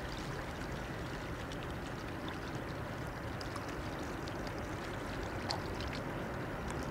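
River water lapping and splashing at the bank in the wake of a passing cargo barge, with small irregular splashes over a steady low rumble.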